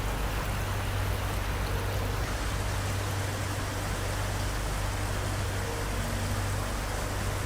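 Steady rushing noise of water, like heavy rain or flowing floodwater, with a constant low rumble beneath it.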